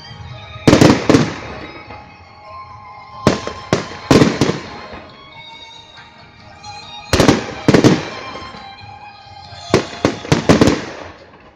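Fireworks display: aerial shells bursting in four clusters of two to four sharp bangs, each followed by an echoing rumble. Music with sustained tones plays underneath.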